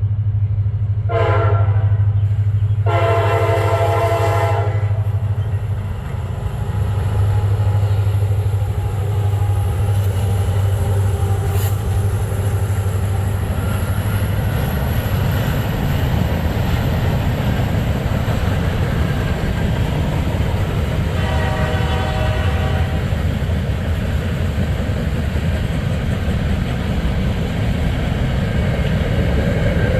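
Freight train passing: the diesel locomotive's horn sounds two blasts, the first short about a second in and a longer one about three seconds in, over the engine's steady low drone. After about fourteen seconds the drone gives way to the rumble of freight cars rolling over the rails, with a fainter horn blast around twenty-one seconds in.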